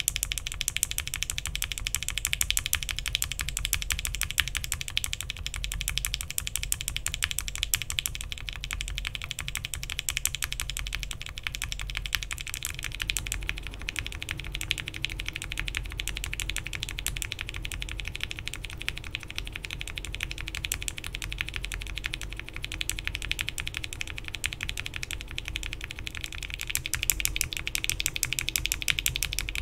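Continuous fast typing on a mechanical keyboard with linear switches fitted with UHMWPE stems, in a Bakeneko60 with an FR4 plate and PBT keycaps. The switches are first in Gateron Ink housings; about halfway through the clatter changes to Gateron Milky Yellow housings, and near the end to Cherry MX Black housings.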